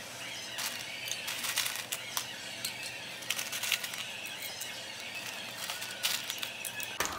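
Ice cubes picked out of a plastic tub and dropped one by one into a glass mug of milk: a scattered run of small, sharp clinks and clicks over a steady high hiss.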